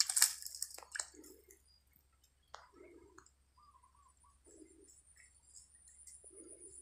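A brief rustling crackle right at the start and a few sharp clicks, then quiet outdoor ambience: soft low calls repeating about every second and a half, a few short chirps, and a faint steady high-pitched whine.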